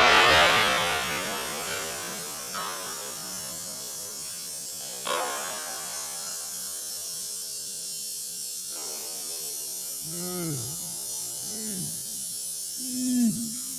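Slowed-down playback of an overinflated tire's bulged sidewall bursting. The fading tail of the burst's rush of air dies away over the first two seconds, leaving a low steady hum broken by two sharp clicks. Near the end come a few deep pitched sounds that rise and fall.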